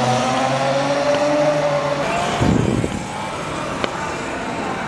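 CFMOTO EV110 electric youth ATV's motor whining steadily under way, its pitch easing slightly downward over about two seconds. A short rough rushing noise follows, then a lower steady hum with a single sharp tick near the end.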